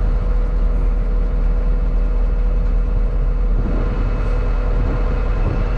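Heavy equipment running steadily at a sugar beet pile, a constant engine and machinery noise with a steady hum.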